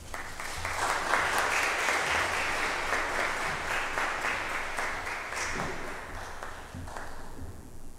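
Applause from a small congregation, hand claps filling in within the first second and thinning out over the last two seconds.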